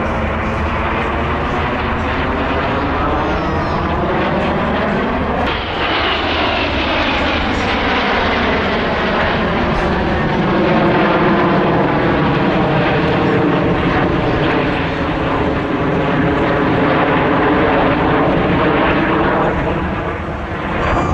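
Jet engines of a formation of BAE Hawk display jets flying past overhead: a continuous rushing jet noise whose tone sweeps as the aircraft pass. The sweeps meet and turn about five seconds in as the formation passes closest, and the noise is loudest around the middle.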